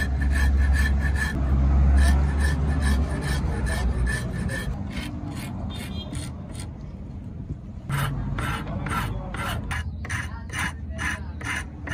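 Steel hand file rasping back and forth across wooden knife-handle scales clamped in a vise, in quick, even strokes about three a second. The strokes thin out around the middle and come back stronger after about eight seconds. A low hum runs under the first four seconds.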